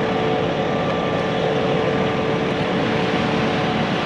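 Concrete pump truck running steadily: a constant engine drone with a steady whine on top.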